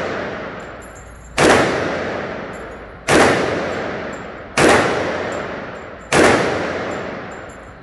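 AR-15-style semi-automatic rifle fired four times as slow single shots, about a second and a half apart. Each shot rings out with a long echo that fades before the next, in an indoor shooting range.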